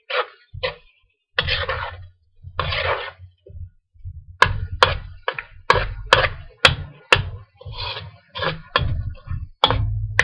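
Metal spoon scraping through chicken pieces in a steel wok in half-second strokes. From about four seconds in, it knocks sharply against the wok about twice a second as the stirring speeds up.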